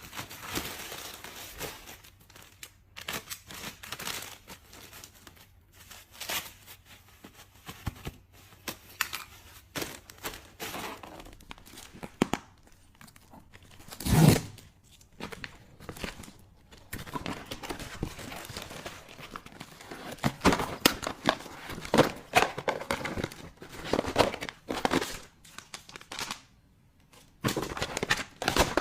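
Plastic packaging crinkling and tearing as things are unwrapped and handled, with scattered clicks and taps and one louder thud about halfway through.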